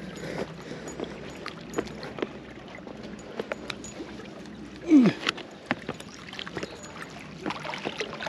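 Small boat on the water, with water lapping against the hull and scattered light knocks and clicks. About five seconds in comes one loud, short sound that slides down in pitch.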